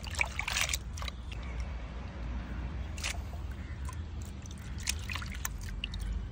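Hands squeezing and rinsing raw octopus in a metal pot of water: scattered wet squelches, drips and small splashes, busiest in the first second and again around five seconds in, over a steady low rumble.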